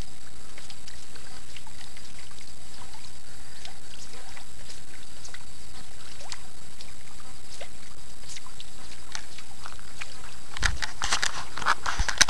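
Steady outdoor hiss with scattered faint, short chirps. Near the end come irregular rustles and knocks of the camera being handled.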